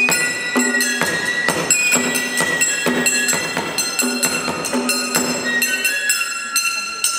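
Live Japanese traditional ensemble music: a high bamboo-flute (shinobue) melody held over steady, rapid percussion strikes with a metallic ring.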